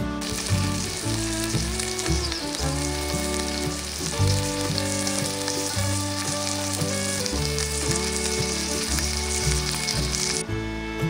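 Beef steak sizzling as it sears in oil in a cast-iron skillet, a dense steady hiss that cuts off shortly before the end, with background music playing underneath.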